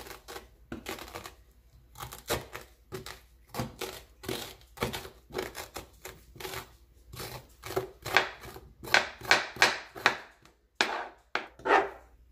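A metal spoon scraping seeds and stringy pulp out of a halved raw spaghetti squash in quick repeated strokes, the scrapes getting louder about two-thirds of the way through.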